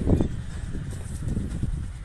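Wind and handling rumble on a handheld phone microphone, with irregular footsteps on rubble and a short thump right at the start.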